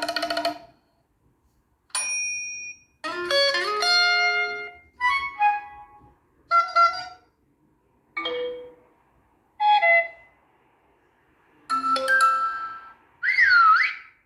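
Honor 9 Lite smartphone's built-in alert tones played one after another: about nine short melodic chimes and jingles, each lasting well under two seconds, with short silences between. The last is a wavering, sliding tone.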